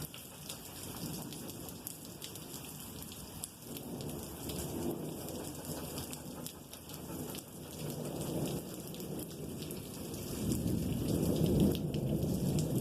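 Long, continuous rolling thunder: a low rumble that swells and grows louder about ten seconds in, like a passing train, over a steady patter of rain.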